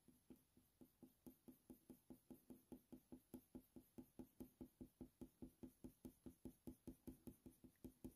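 Faint, rapid ticking of a Polychromos colour pencil making short strokes on hot-press watercolour paper, about five ticks a second, starting about a second in.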